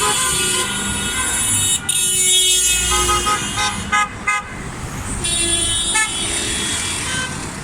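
Passing cars sounding their horns over road traffic: a long horn blast, a run of short toots about halfway through, then another long blast.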